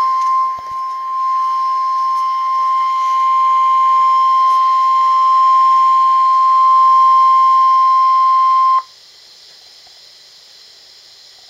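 NOAA Weather Radio warning alarm tone: one steady, high-pitched beep held for several seconds. It cuts off sharply about nine seconds in, leaving a faint steady radio hiss.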